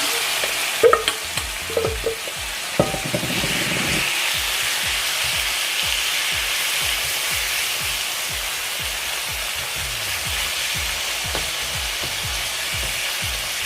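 Lemongrass-marinated chicken strips frying in hot oil in a pan: a steady sizzle, with a few knocks in the first three seconds as the pieces go in and are moved about.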